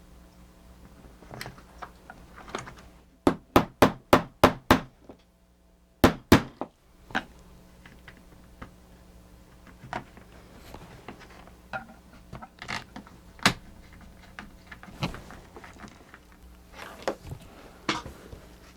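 Hard taps and clicks from work on a small plastic gear mechanism. A few seconds in comes a run of six quick sharp taps, two more follow shortly after, then lighter scattered clicks and knocks over a faint steady hum.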